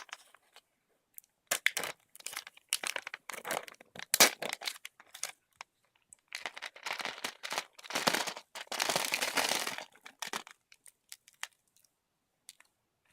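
Snack packaging being opened by hand: irregular crinkling and tearing as the film lid is peeled off a Graze snack tray, with a longer stretch of continuous rustling near the end, then a few light clicks.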